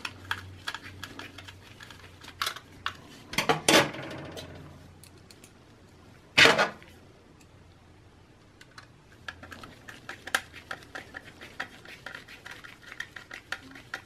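Screwdriver driving small screws into a solid-state drive and its metal mounting bracket: light metallic clicks and scrapes, with louder clinks about three and a half and six and a half seconds in, and a run of quick small ticks in the last few seconds.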